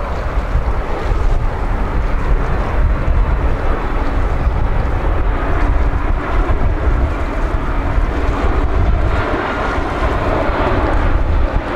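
Jet engines of a Boeing 767-300ER airliner on final approach with landing gear down, a steady jet noise growing louder in the last few seconds as the aircraft nears. Gusty wind buffets the microphone throughout.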